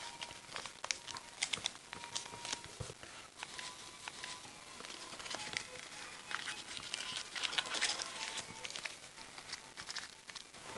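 A sheet of origami paper being folded and creased by hand: soft, irregular crinkling and rustling with scattered small crackles.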